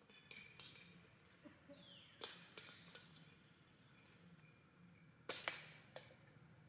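Near silence: faint background with a few soft clicks, one a little over two seconds in and a close pair about five seconds in.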